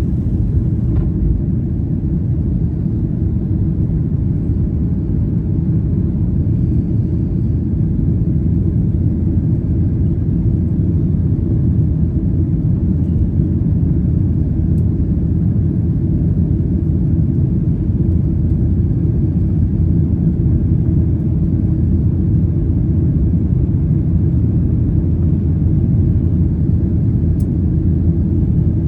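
Boeing 737-800 cabin noise: a steady low rumble of the jet engines and airflow, heard from inside the passenger cabin.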